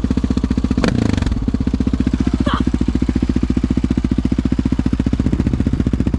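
Quad (ATV) engine idling in steady rapid pulses, with a short louder burst about a second in. The exhaust is loud enough that the rider finds it makes too much noise.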